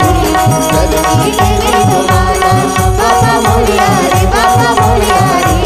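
Devotional bhajan music played live: a harmonium and an Indian banjo carry the melody over tabla, whose bass strokes slide down in pitch.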